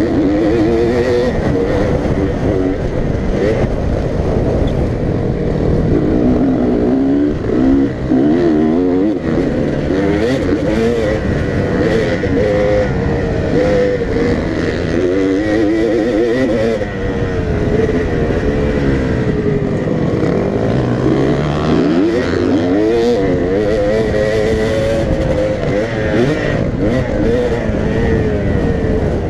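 Dirt bike engine revving hard, its pitch climbing and dropping again and again through gear changes and throttle-offs, with wind rushing over the helmet-mounted camera.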